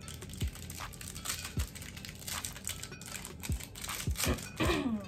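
Plastic candy wrapper crinkling and tearing as it is opened by hand, with a short falling voice-like sound near the end.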